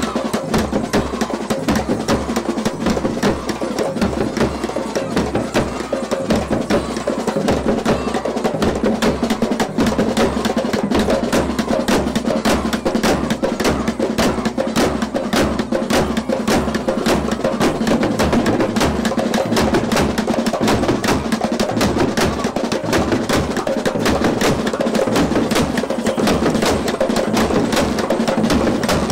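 Barrel drums beaten with sticks in a fast, steady rhythm, mixed with sharp metallic clashes of brass hand cymbals.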